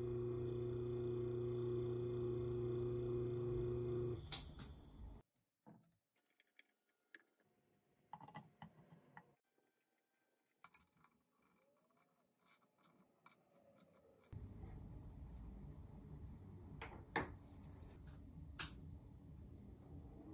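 Electric motor of a vintage Sears (Lasko) hassock fan, switched on to test it after re-lubrication, humming steadily and stopping with a click about four seconds in. Faint scattered clicks of handling follow, then a low steady rumble near the end.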